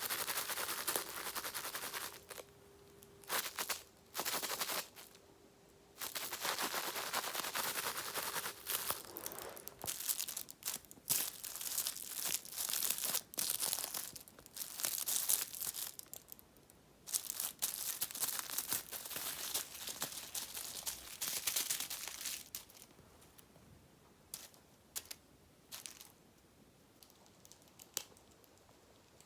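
A kitten playing with a toy: bursts of rustling and scratching, a few seconds each with short pauses. After the last burst, about three-quarters of the way through, only a few faint clicks are left.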